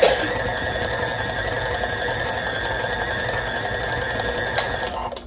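Electric stand mixer running steadily, its motor whining at a constant pitch as the beater churns a thick flour dough in a stainless steel bowl. The motor is switched off near the end and the sound cuts out.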